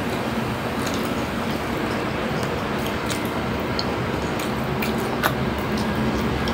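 Chewing and small mouth and hand clicks from eating grilled pork skewers and rice by hand, with a few sharp clicks, over a steady background hiss and hum.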